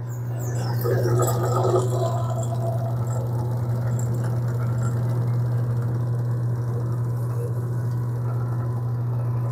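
Pasta roller running with a steady low hum as the dough sheet goes through it. The hum grows louder just after the start, then holds level.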